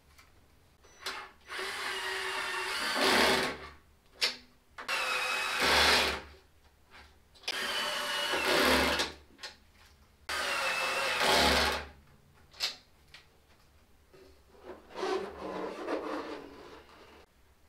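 Cordless drill with a 10 mm socket driving the bolts that fasten the wing uprights, in four short runs of one and a half to two seconds each, every run getting louder at its end as the bolt tightens.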